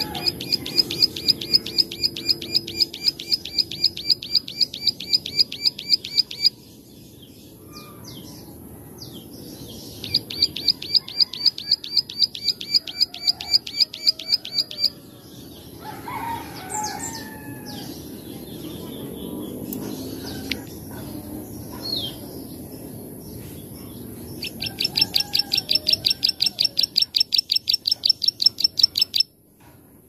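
Plain prinia (ciblek sawah) singing its 'klik-klik' song: three long runs of sharp clicking notes, about six a second, each run lasting five or six seconds, with soft scattered chirps between the runs.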